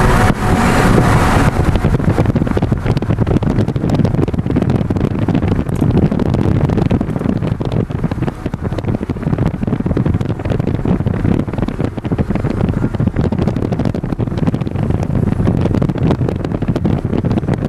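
Car travelling at highway speed, heard from inside: wind buffeting the camcorder microphone over a steady rumble of road noise.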